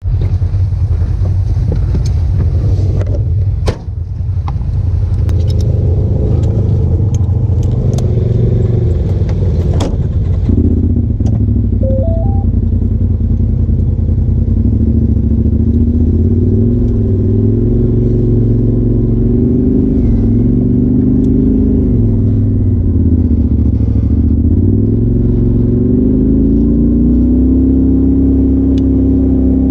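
Turbocharged Polaris RZR side-by-side engine running at low trail speed, heard from inside the cab, its pitch rising and falling with the throttle and climbing near the end. Sharp clicks and knocks of the chassis rattling over the trail come through in the first ten seconds, and a short three-note rising beep sounds about twelve seconds in.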